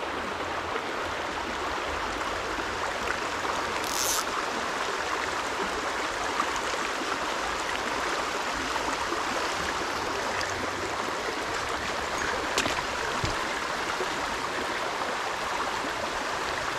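Shallow, rocky brook running steadily over stones in riffles. A brief high hiss comes about four seconds in.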